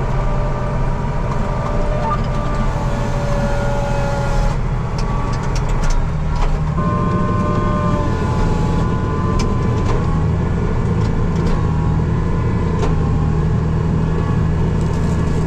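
Farm tractor engine running steadily, its low drone shifting slightly in pitch about seven seconds in.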